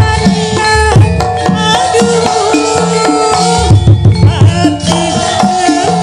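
Javanese gamelan music with a woman singing into a microphone over held metallophone tones and hand-drum (kendang) patterns. A fast run of about six low drum strokes comes about four seconds in.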